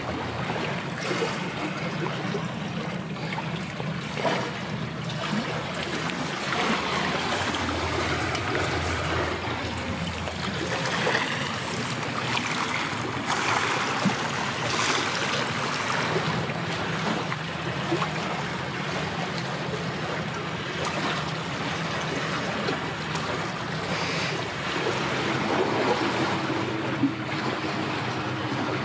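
Small waves washing against a rocky shoreline, a noisy wash that swells and fades, over a steady low hum.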